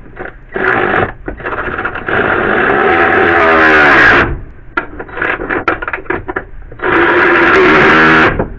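A cordless power tool with a socket runs down two bolts, one after the other, in two runs of about two seconds each, its motor pitch sagging as each bolt seats. Shorter bursts and clicks come between the runs.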